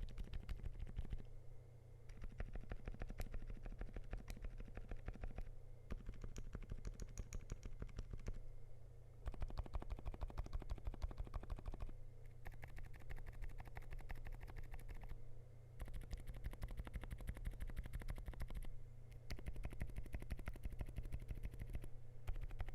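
Fast typing on a Zuoya LMK81 mechanical keyboard with lubed DUROCK Dolphin silent linear switches, a polycarbonate plate and PBT keycaps: a dense run of muted key strokes, broken by short pauses every few seconds.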